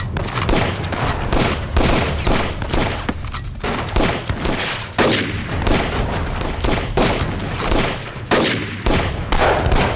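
A heavy exchange of gunfire: many guns firing at once, with shots overlapping irregularly and several close loud ones, over a steady low rumble.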